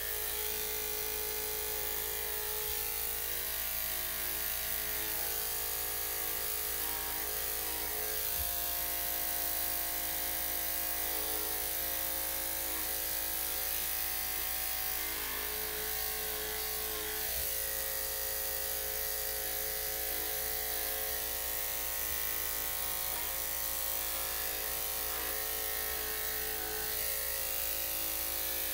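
Electric dog grooming clippers fitted with a #5 blade, running steadily with an even motor hum.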